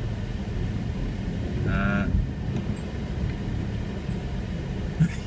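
Vauxhall Omega's engine running with a steady low rumble, heard from inside the cabin as the car wades through deep floodwater. A brief vocal sound comes about two seconds in.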